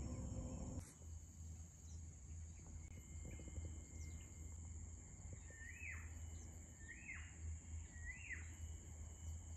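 A steady high insect drone, with a bird repeating a short rising-then-falling call about once a second from around five seconds in. A brief louder noise comes in the first moment.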